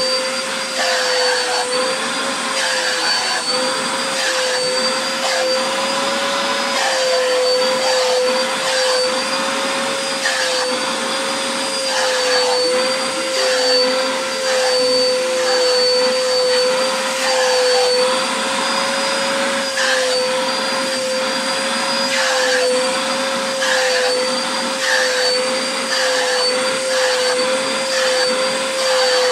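Vacuum cleaner running steadily, a constant whine over a rushing of air that wavers slightly in pitch, as its brush attachment is drawn through a dog's long fur. The airflow sound shifts a little with each stroke.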